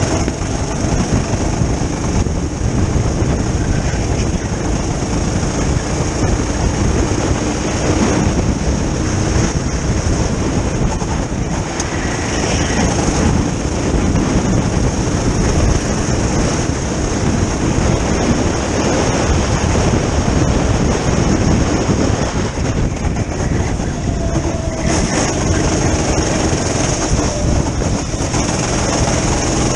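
Go-kart driven at speed, heard from a camera mounted on the kart: its engine running under steady load, mixed with heavy wind rush over the microphone.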